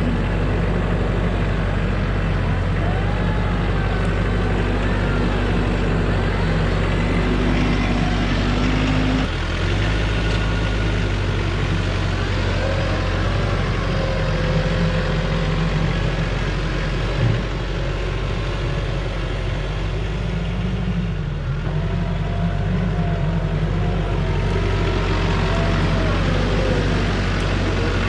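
Heavy vehicle engine running steadily, its pitch rising and falling now and then as the revs and load change.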